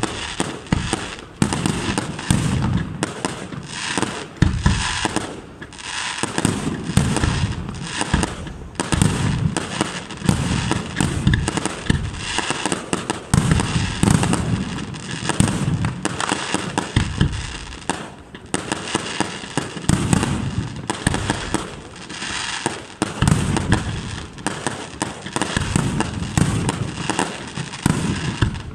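Fireworks display: aerial shells bursting in near-continuous succession, a steady barrage of sharp bangs and deep booms.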